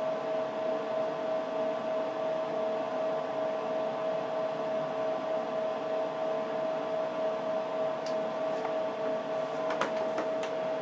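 Steady cooling-fan noise with a constant whining tone from the running HP 54845A Infiniium oscilloscope, with a few faint clicks in the last few seconds.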